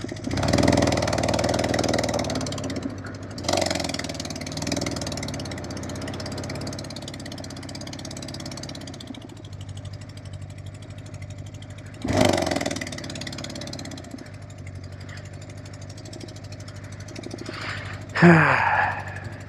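Yamaha XJ600S air-cooled inline-four motorcycle engine running with one spark plug out, so one cylinder is not firing. It swells as the bike pulls away, then runs on steadily, with a couple of short loud whooshes. The rider says it sounds like a dirt bike and calls it a scary sound.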